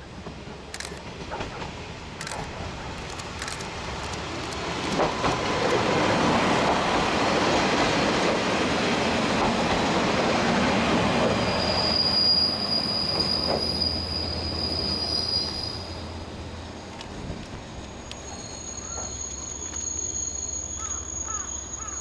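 KiHa 47 diesel railcar pulling into a station: the rumble of its engine and wheels builds to a peak and then dies away. High steady squealing comes as it slows, and a low steady hum stays after the train has stopped.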